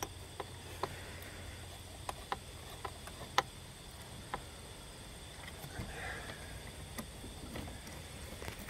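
Scattered light clicks and taps of a flathead screwdriver working the hose clamps on a plastic engine air intake tube, the sharpest click about three and a half seconds in.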